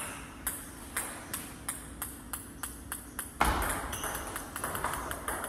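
Table tennis ball clicking sharply off paddles and table, about three clicks a second, with a louder thump about three and a half seconds in.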